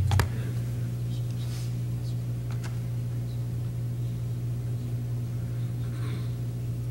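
A steady low hum with no speech. Right at the start there are knocks of a book and papers being picked up off the wooden pulpit close to the microphone, then a few faint taps and rustles.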